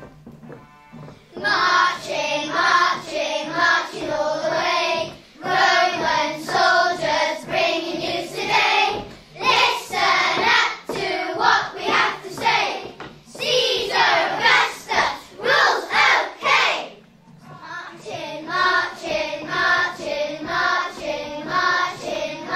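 A group of children singing a song together, starting about a second and a half in, in phrases with short breaks between them.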